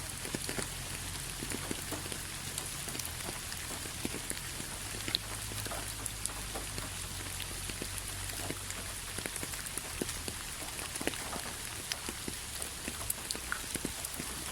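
Steady rain falling, with many separate drops ticking sharply through an even hiss, and a faint low hum underneath.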